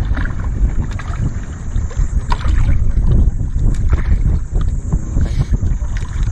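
Wind buffeting the microphone and water slapping the hull of a drifting wooden outrigger boat, a steady loud rumble, with a couple of light knocks as the fishing line is handled.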